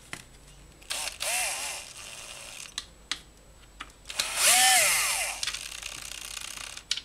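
Bosch cordless drill-driver running in two short bursts, about a second in and again, louder, about four seconds in, as it drives screws into a string trimmer's plastic housing. Its motor pitch rises and then falls with each burst.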